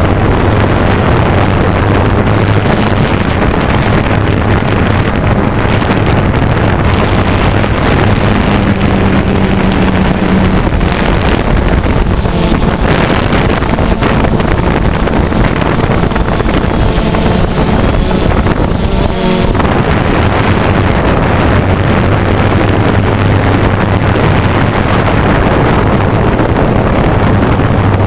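Remote-controlled multirotor hover craft's electric motors and propellers running with a loud, steady hum, heard from the camera mounted on the craft, with heavy wind rushing on the microphone. The hum shifts and wavers partway through as the craft manoeuvres.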